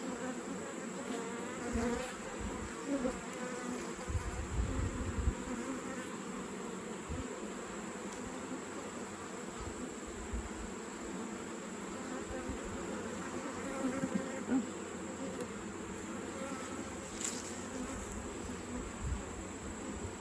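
Honey bees buzzing around an opened hive: a steady drone of many wings, wavering in pitch. Occasional low bumps on the microphone.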